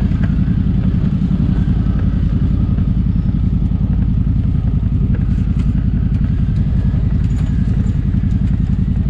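CFMOTO UForce 1000 side-by-side's V-twin engine running steadily while driving a rutted dirt trail, with light clatter from the machine.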